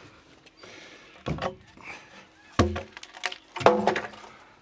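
Heavy wooden thuds and knocks as an old timber porch post is knocked free. There are several hits, the heaviest about two and a half and three and a half seconds in.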